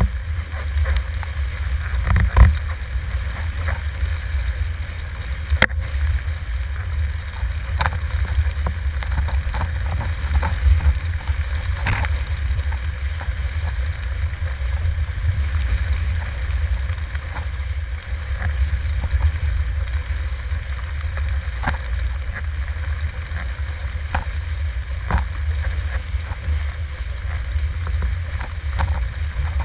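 Wind buffeting the microphone in a steady low rumble while a windsurf board planes over choppy sea, with water rushing past and frequent sharp knocks as the board hits the chop.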